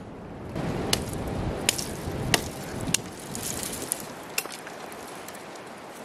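Chopping wood sticks: about five sharp, separate chop strikes at an uneven pace, over a rustling background.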